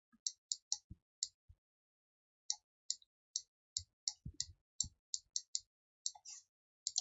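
Computer mouse buttons clicking irregularly, about fifteen short sharp clicks, as strokes are drawn on a digital whiteboard, with a few faint low thumps among them.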